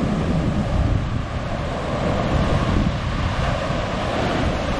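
Ocean surf breaking and washing in among jagged shoreline rocks, with wind rumbling on the microphone.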